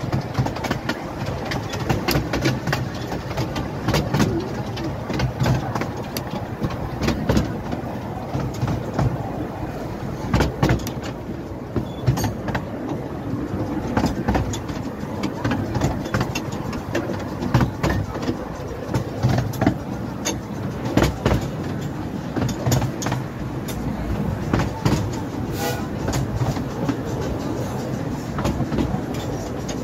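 Open carriage of a 12¼-inch gauge miniature railway train running along the track. There is a steady rumble and rattle, with frequent irregular sharp clicks and knocks from the wheels on the rails.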